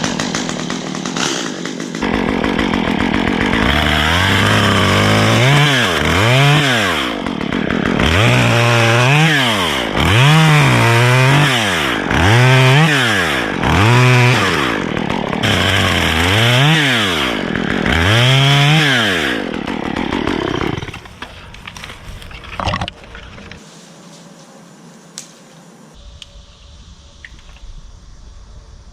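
Stihl chainsaw running hard, its engine speed rising and falling over and over, roughly once a second, through most of its run. The saw cuts out about 21 seconds in, leaving a few scattered knocks.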